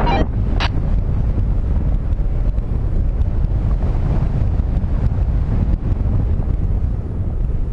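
Wind buffeting the microphone of a camera carried in free flight, a steady low rumble of rushing air.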